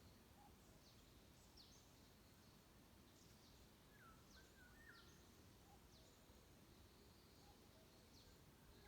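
Faint forest birdsong: repeated short, high, downslurred notes from small birds, with a few lower chirps about four seconds in, over a steady faint hiss.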